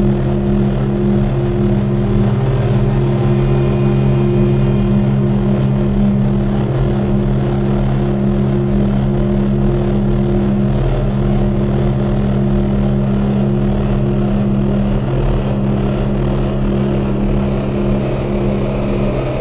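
Electronic drone from a Lyra-8 synthesizer run through Noise Rumble, T-Resonator and Black Hole: several steady low tones held over a dense rumbling noise. The middle tone drops out briefly about every four seconds.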